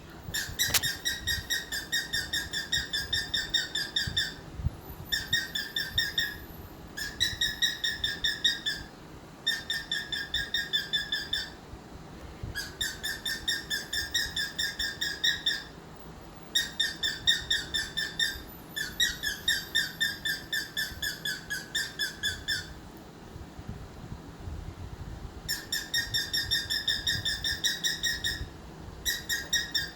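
Cockatiel calling in runs of rapid, evenly repeated chirping notes, about four or five a second. Each run lasts two to four seconds, with short pauses between.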